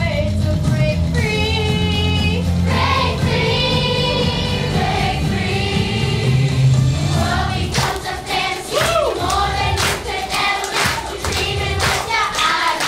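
A song sung by a group of voices over backing music. The first half has held notes with a marked vibrato. About eight seconds in, sharp percussive hits come in rapidly under the singing.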